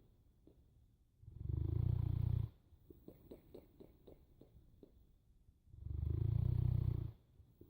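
Boerboel dog snoring in its sleep: two loud, deep snoring breaths about four seconds apart, each about a second long, with a faint fluttering crackle between them.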